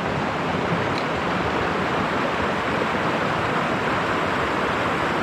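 Creek water flowing, a steady rush of running water.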